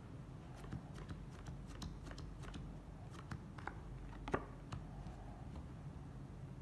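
Playing cards being handled and dealt onto a felt table: a string of light, irregular clicks and flicks, the loudest a sharp snap about four seconds in, over a low steady hum.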